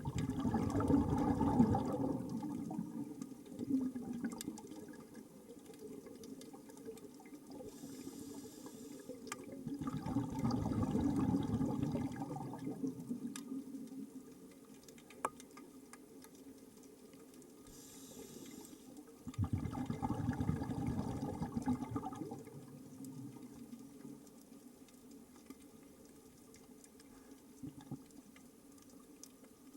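A scuba diver breathing underwater through a regulator. Exhaled bubbles rush out in three bursts about nine to ten seconds apart, and a short, faint hiss of the regulator on each inhale comes just before the second and third bursts.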